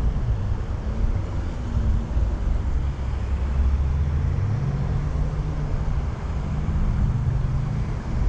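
Low engine hum that drifts up and down in pitch over a steady rushing noise.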